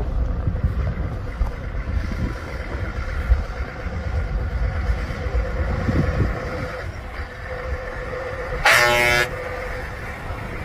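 Scania V8 truck engine running as the truck drives past, then one short blast of a truck air horn about nine seconds in, the loudest sound.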